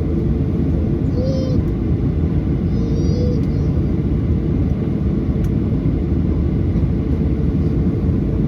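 Steady, even cabin rumble inside a Boeing 737-800, from its CFM56-7B engines and airflow, heard from a window seat. A couple of faint, brief wavering tones sound about a second in and again about three seconds in.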